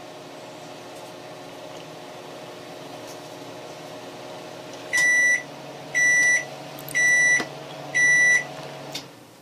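Microwave oven running with a steady hum, then sounding four high beeps about a second apart as the heating cycle ends; the hum stops just after the last beep.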